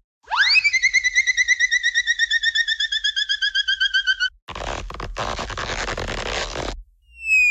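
Cartoon sound effects played one after another. First a warbling tone swoops up and then slides slowly down for about four seconds with a fast wobble. Then comes a hissing burst of about two seconds, broken once by a short gap, and near the end a smooth falling tone begins.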